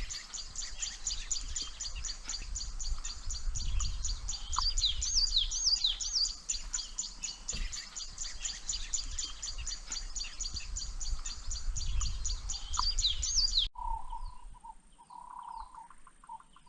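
Birds calling: a fast, even run of high chirps mixed with down-slurred whistles over a low wind rumble. It cuts off abruptly about 14 seconds in, leaving fainter, lower calls.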